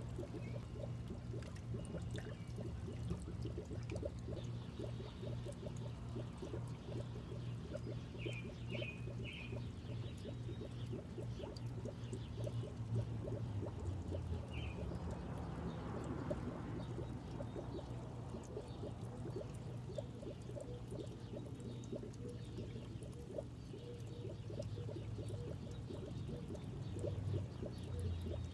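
Water bubbling and trickling steadily in a small goldfish pond, over a low steady rumble.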